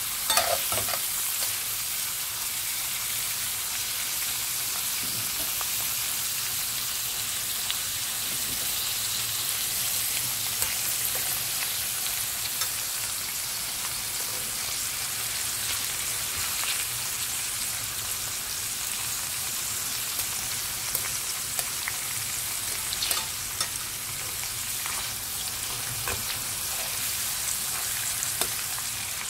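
Beef rib finger meat sizzling steadily in a stainless steel frying pan. A few sharp clicks of metal tongs against the pan come about a second in and again near the end.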